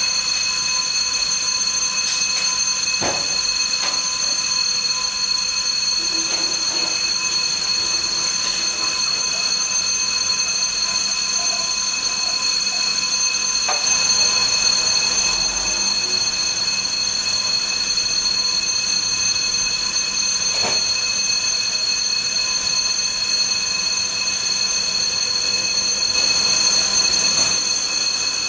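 Apartment building's emergency fire bell ringing steadily without a break, set off for a fire drill. A few faint knocks sound over it.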